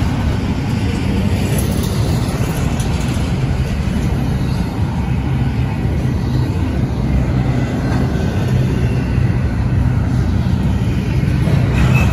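Double-stack intermodal freight train's well cars rolling past, a steady, loud noise of steel wheels running on the rails.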